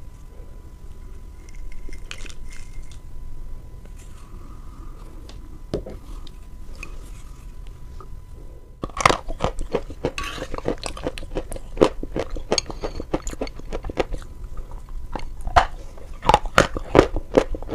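Close-miked biting and chewing of sawn chalk pieces: rapid, crisp crunches that start about nine seconds in and run thick to the end. Before that there are only a few soft handling knocks of dishes.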